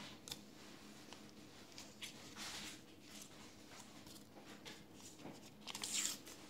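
Faint rustling and crinkling of small paper packets of gauze and alcohol prep pads being handled and opened, with a few light clicks, and a louder rustle near the end.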